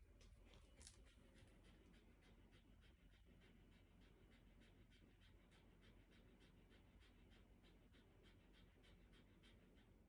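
Faint, quick, even panting of a Shiba Inu, about three to four breaths a second.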